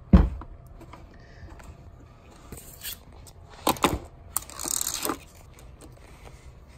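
A dull thump as a plastic Fishbones piece is pressed down onto the grip-taped Onewheel footpad, then three short rustling, tearing bursts of its adhesive backing film being peeled and handled.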